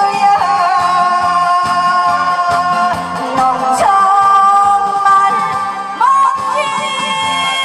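A female singer singing her song live into a microphone over backing music with a steady beat, holding long notes.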